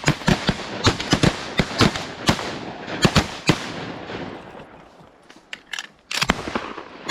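Several hunters' shotguns firing in a rapid, overlapping volley, about a dozen shots in the first three and a half seconds, then a lull and a few scattered shots near the end.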